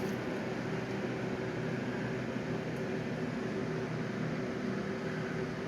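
A steady mechanical hum: a constant low drone with a noisy whoosh over it, unchanging throughout.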